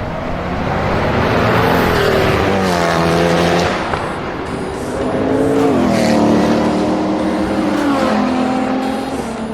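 Performance car engine accelerating hard and loud. The pitch climbs, then drops sharply about four seconds in and again about six seconds in.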